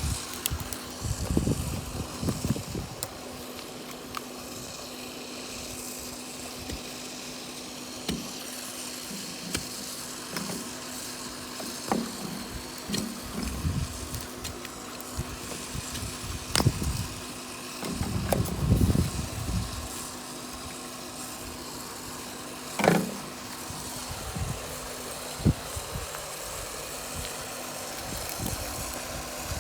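A steady mechanical hum, like a small motor running, under scattered thumps and rustling, with two sharp knocks a few seconds apart past the middle.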